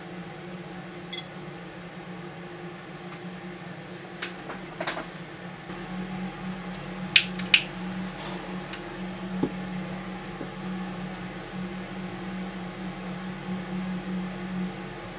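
Solder fume extractor fan running at speed 3, a steady hum that gets a little louder about six seconds in. A few sharp clicks and taps from handling the smoke matches, two loudest ones close together about halfway through.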